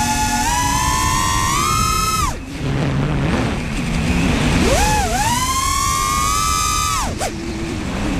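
Brushless motors (T-Motor F40 2500kv) spinning 5-inch three-blade props on an FPV freestyle quadcopter, whining as the throttle changes. The pitch climbs over the first two seconds and cuts out at about two and a half seconds, leaving a rushing noise with the throttle low. Near five seconds it swoops back up to a steady high whine, dipping briefly near the end.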